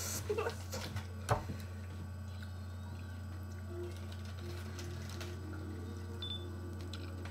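A steady low hum, with a few short clicks in the first second and a half, the sharpest about a second and a half in.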